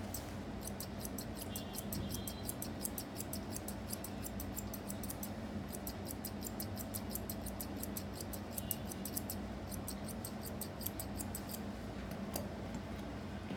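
Grooming scissors snipping through a dog's leg hair: quick, even snips, about six a second, pausing briefly about halfway through.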